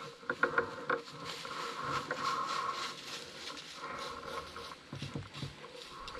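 Handling noise from a camera in a waterproof case mounted on a crossbow: irregular rustling, rubbing and small knocks as the bow is shifted, with every movement amplified through the case.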